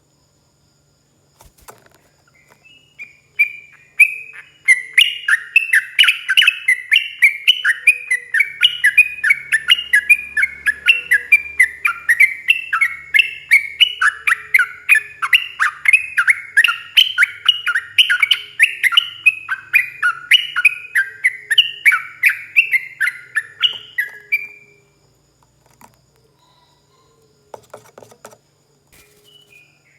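Yellow-vented bulbul (trucukan) singing a long, rapid run of chattering, bubbling notes without a break for about twenty seconds. The song then stops suddenly, and a few short calls come near the end.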